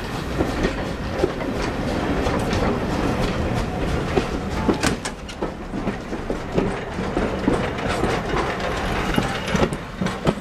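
Passenger coaches of a steam-hauled train rolling past close by, the wheels clattering with many sharp, irregular clicks and knocks over the rail joints. The sound drops away at the very end as the last coach passes.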